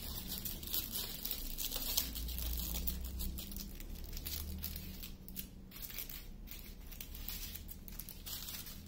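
Small clear plastic bags of diamond painting drills crinkling and rustling as they are picked up and set down, in irregular short bursts.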